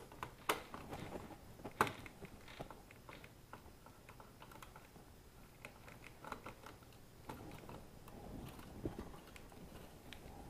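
Faint clicks and taps of a screwdriver working the screw terminals on an alarm panel's circuit board while wires are handled. There are two sharper clicks in the first two seconds, then fainter scattered ticks.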